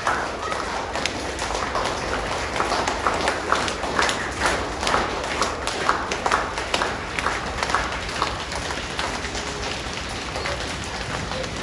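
A crowd of kids making a rainstorm sound with their hands: a dense patter of claps and slaps that is thickest in the middle, then thins to a soft, steady rustle near the end.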